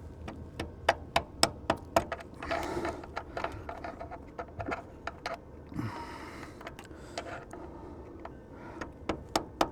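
Irregular sharp metallic clicks and light taps of hand tools on steel parts, coming in short runs of several at a time, with a couple of brief soft hisses between them.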